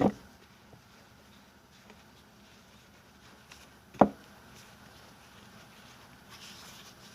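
Two sharp knocks, one at the start and a louder one about four seconds in, from kitchen handling while flour dumpling dough is being worked, with faint handling noise between.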